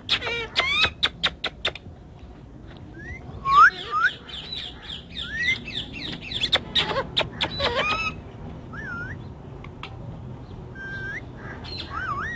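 Indian ringneck parakeet calling in short chirps and rising squawks, busiest and loudest through the middle and fainter toward the end, after a quick run of sharp clicks at the start.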